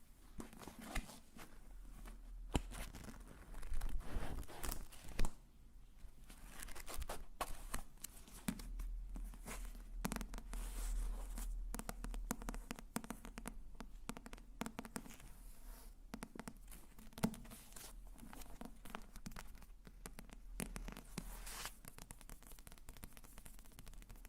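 Close-miked ASMR trigger sounds: irregular crinkling and scratching of a material handled right at the microphone, full of small clicks and crackles, with a louder cluster about four to five seconds in.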